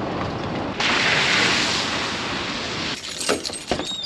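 A steady hiss, louder from about a second in, then a run of sharp clicks and knocks near the end as a hand works the handle of a locked shop door.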